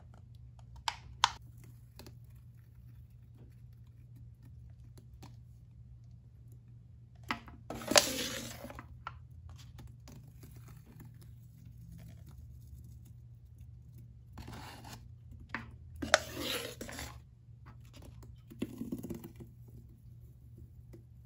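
Plastic cup scooping and scraping thick Ajax cleanser paste against a metal tub: two sharp clicks about a second in, then four short, wet scrapes spaced a few seconds apart, over a low steady hum.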